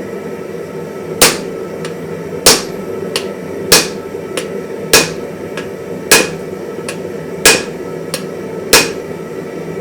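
Hand-hammer blows on hot wrought iron over an anvil: seven heavy strikes about every one and a quarter seconds, each followed by a lighter tap, over a steady low hum. This is the forging that, in the smith's own words, went too far and began shearing the forge welds.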